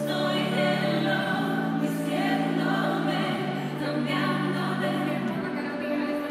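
Live concert music with singing: held bass notes that change every second or two under layered sustained notes, in the opening number of the show.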